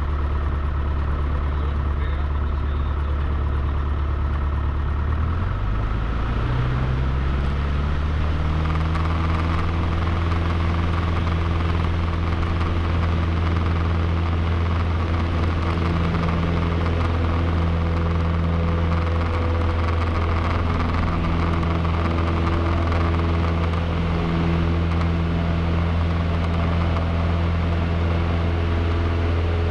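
Cessna 152's four-cylinder Lycoming engine heard from inside the cabin, rising in pitch about five to eight seconds in as power comes up for takeoff, then running steadily at full power through the takeoff run and liftoff.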